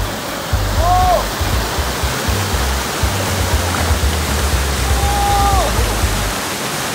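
Rushing white water of a small creek weir as a cardboard boat slides down it, under background music. Two brief arching tones stand out, about a second in and again around five seconds.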